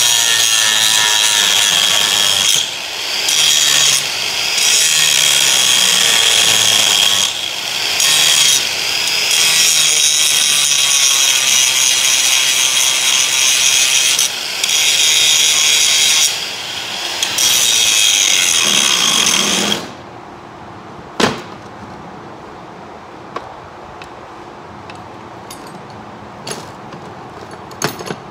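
Handheld angle grinder grinding on a rusty steel roller chain, a loud high whine with a steady tone. It eases off for a moment about half a dozen times and stops about 20 seconds in. After that come a few sharp metal knocks as the chain is handled.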